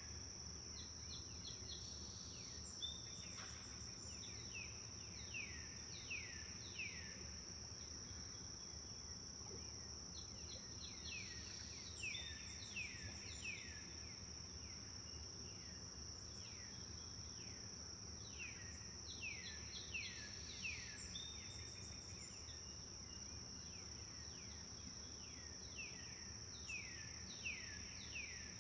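Forest songbirds singing in bouts of quick downward-sliding whistled notes, several a second, coming back every few seconds over a continuous high insect trill. A low steady background hiss runs underneath.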